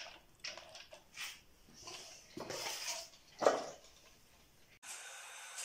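Scoops of parboiled rice dropped from a metal ladle into a steel pot, several soft rustling pours with the ladle scraping and knocking against the pot, the loudest about three and a half seconds in. Near the end a sudden cut to a steady hiss.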